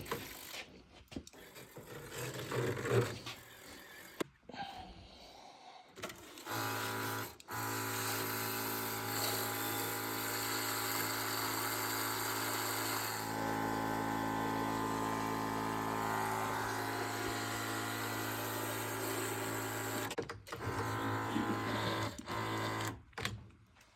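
A small electric motor running steadily for about fourteen seconds with a hiss, its tone shifting once midway, after a few seconds of faint handling noises.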